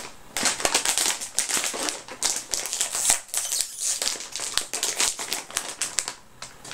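Plastic snack packet crinkling and crackling rapidly as it is handled and pulled open by hand.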